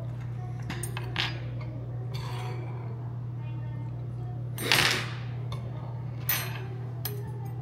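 Spoon and chopsticks clinking and scraping against a soup bowl during a meal: a few light clicks about a second in, then louder clatters about five and six seconds in, over a steady low hum.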